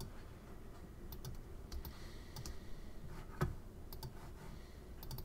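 Light clicks of a computer mouse and keyboard, about ten taps at uneven intervals over a faint room hum.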